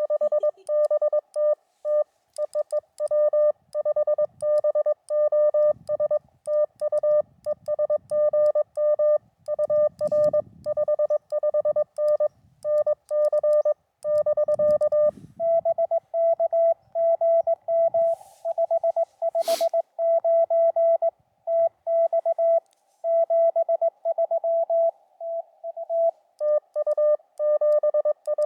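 Morse code (CW) tones from a portable amateur radio transceiver, keyed in quick dots and dashes. About fifteen seconds in, a slightly higher tone with a faint hiss around it takes over, and the first tone returns near the end. There is one sharp click in the middle.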